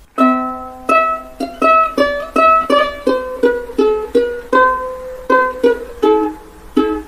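Light background music of plucked strings picking out a melody at about three notes a second.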